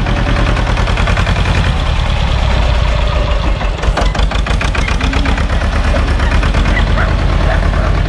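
Small Same diesel tractor engine running steadily at low speed while the tractor pulls a trailer, its regular firing pulses clearly heard.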